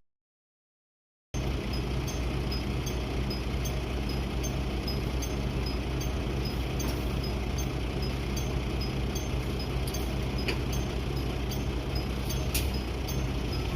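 After about a second of silence, a Keifuku bus's engine runs steadily with a low hum while its left-turn indicator chime repeats at an even pace as short high tones. Two sharp clicks come near the end.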